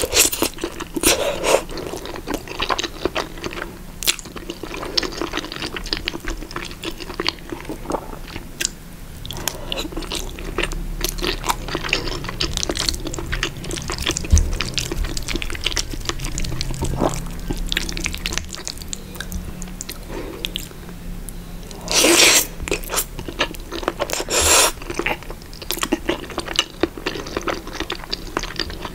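Close-miked ASMR eating sounds: wet chewing and mouth clicks on a mouthful of creamy spaghetti carbonara. Near the end come two louder slurps as strands of spaghetti are sucked in.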